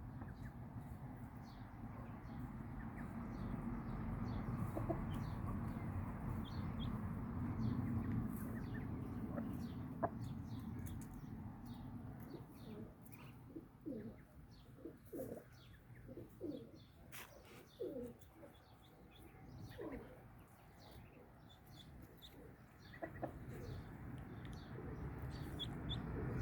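Farmyard poultry clucking, with a run of short calls in the middle and faint high chirps throughout, over a low rumbling noise that is stronger in the first half.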